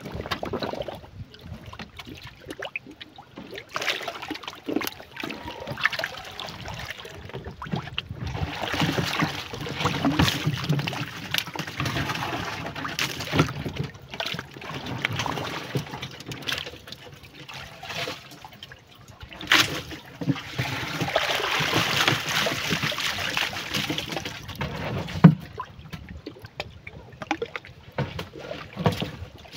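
Water sloshing and trickling as a rubber-bucket catfish trap is hauled up by its line beside a wooden canoe and lifted from the river, water pouring out of it in two longer spells, with a couple of sharp knocks against the boat.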